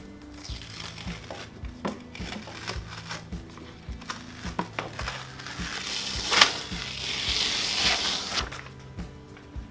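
Backing paper crinkling and crackling as it is peeled off a self-adhesive liner. The rustle builds through the middle, is loudest with a sharp crackle about six and a half seconds in, then dies away. Background music with a steady beat plays underneath.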